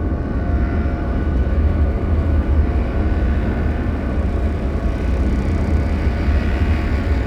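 Horror ambience drone: a steady deep rumble with faint sustained tones above it, and no sudden hits.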